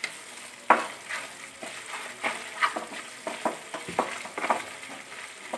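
Masala gravy sizzling in oil in a nonstick pan while a spatula stirs in turmeric powder, about a dozen short, irregular scrapes over a soft, steady sizzle. The masala is frying until the oil separates out.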